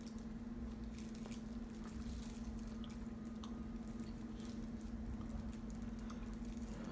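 Faint scattered crinkles and small clicks of a small plastic candy wrapper being picked at and unwrapped by hand, over a steady low electrical hum.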